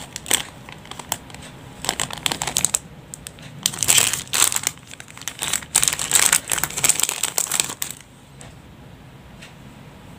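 Clear plastic bags crinkling in several bursts as metal fishing jigs are handled and slid out of their packaging. The crinkling stops about eight seconds in, leaving only a few faint ticks.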